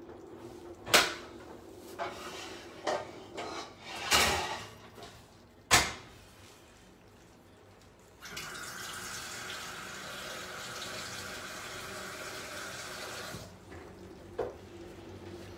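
A few sharp clanks of pots being handled, then a kitchen tap running steadily for about five seconds, filling a pot with water to boil for spaghetti, and shut off abruptly.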